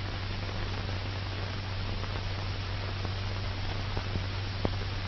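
Steady hiss with a low hum and a few faint clicks near the end: the background noise of an old optical film soundtrack.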